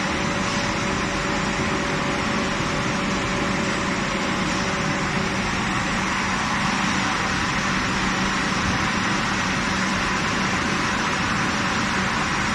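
A 6 kW fiber laser cutting machine running: a steady hiss with a low hum underneath, unchanging throughout.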